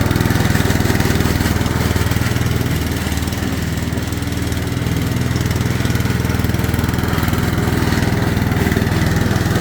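Briggs & Stratton 650 series 190cc single-cylinder engine on a self-propelled petrol lawn mower, running steadily while mowing with the deck at its lowest cutting height; it does not stumble.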